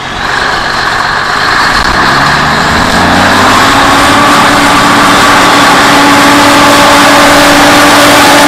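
1983 International S Line SF2670 truck's diesel engine working hard under load as it drags a tractor-pull weight sled. It revs up over the first few seconds, then holds at high revs.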